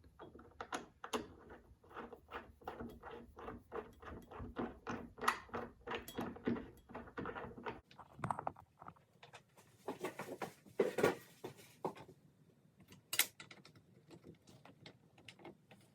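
Hand ratchet wrench clicking in a steady rhythm, about three clicks a second, as a roof-rail foot bolt is lightly run in. The clicking stops about halfway through and gives way to scattered knocks and rattles of parts being handled.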